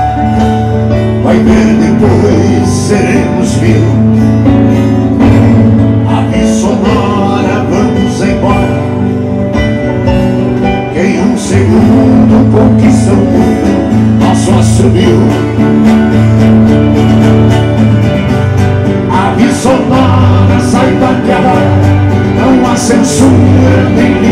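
Live regional gaúcho band music: strummed and plucked acoustic guitars over sustained bass notes from a keyboard.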